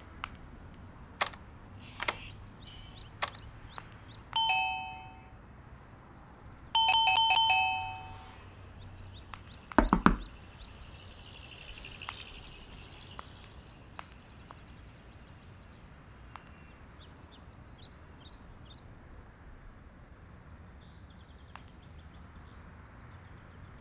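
Electric doorbell chiming twice, a two-note ding-dong, the second ring held longer, after three sharp knocks at the door. A dull thump follows about ten seconds in, then faint bird chirps.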